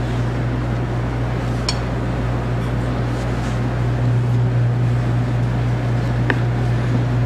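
Steady low hum with an even hiss of background noise, and two faint light taps, one near the start and one near the end.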